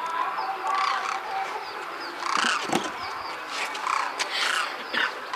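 Flock of demoiselle cranes calling in flight: a steady string of short, overlapping calls from many birds.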